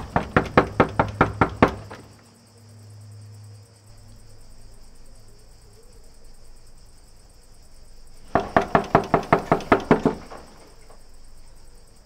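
Knuckles rapping on an old wooden door in two quick runs of about ten knocks each: one at the start, and another about eight seconds in after a pause.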